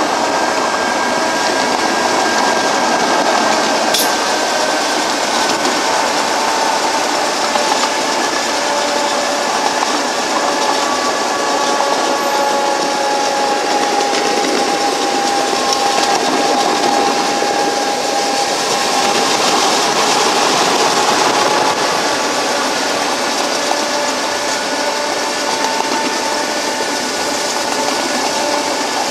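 A 1.6-inch-scale EMD F7 riding locomotive, powered by a 16 hp Briggs & Stratton V-twin engine, runs along the track with its control car. The result is steady running and wheel-on-rail noise, with faint whining tones that slowly rise and fall in pitch.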